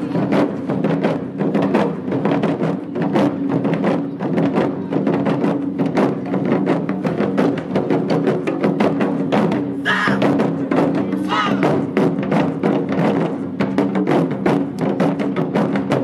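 Japanese taiko drum ensemble playing: many drummers strike barrel-shaped taiko with sticks in a fast, dense, continuous rhythm. Voices shout about ten seconds in and again shortly after.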